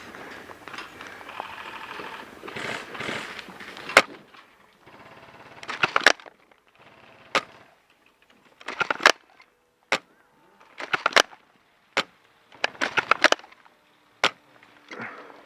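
Airsoft guns firing: sharp snapping shots, some single and some in quick bursts of two to four, starting about four seconds in. Before the first shot there is a few seconds of rustling movement noise.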